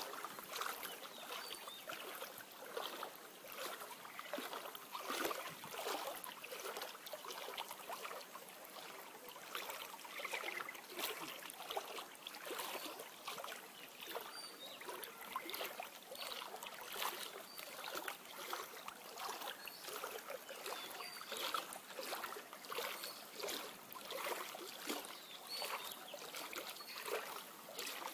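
Water sloshing and splashing irregularly, as of legs wading through knee-deep floodwater.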